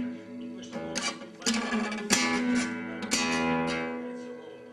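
Nylon strings of a classical guitar pawed by a cat: single notes and little strums plucked at irregular moments, about once a second, each ringing on and fading.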